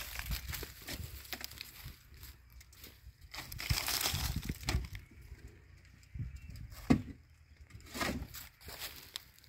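Dry maize stalks and leaves rustling and crackling on and off, with a few sharp knocks; the loudest knock comes about seven seconds in.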